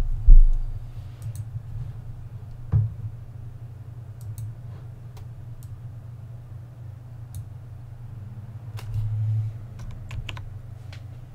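Handling of a vinyl sheet and a plywood panel: a loud low thump just after the start, a knock about three seconds in, and a run of light clicks and taps near the end, over a steady low hum.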